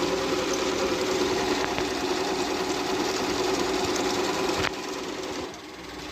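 Singer electric sewing machine stitching at a steady speed, its motor humming and needle mechanism rattling rapidly, then stopping abruptly about three-quarters of the way through.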